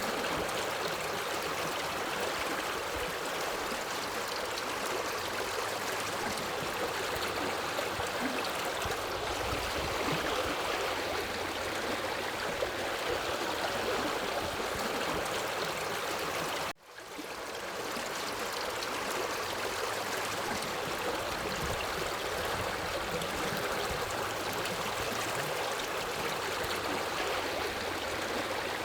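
Forest river flowing over rocks: a steady rush of moving water. About two-thirds of the way through, the sound cuts out for an instant and fades back in.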